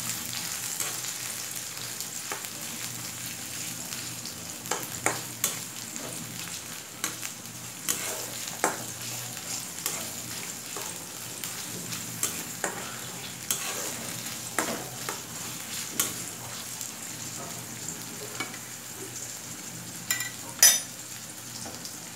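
Sliced onions frying with a steady sizzle in hot oil in a metal karahi, stirred with a silicone spatula that taps and scrapes against the pan at irregular moments, loudest near the end.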